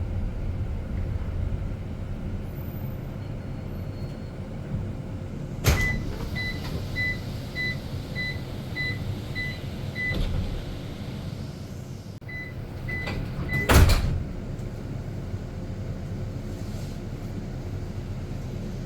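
A driverless bus's passenger door working at a stop: a clunk, then a steady series of high warning beeps, about two a second, as the door opens. After a pause come three more beeps and a heavy thump as the door shuts, over the low hum of the bus.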